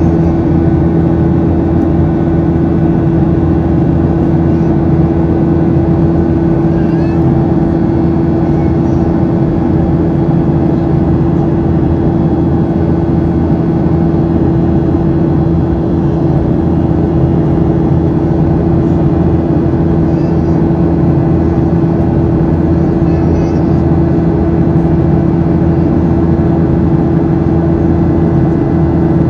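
Boeing 737-700's CFM56-7B engines heard from inside the cabin: a steady engine buzz, a single constant hum over the rush of air and engine noise.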